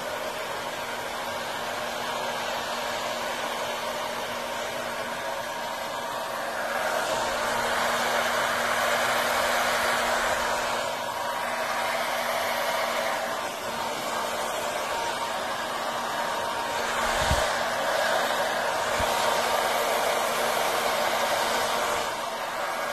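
Small electric blower with a narrow nozzle running steadily, blowing air across wet alcohol ink: a constant rushing hiss over a faint hum. It gets louder about a third of the way in and again for a few seconds near the end, and there are two faint low knocks.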